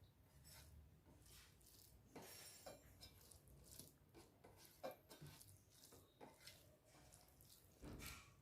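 Faint, scattered clinks and taps of eating from a plate, with a louder cluster of clatter near the end.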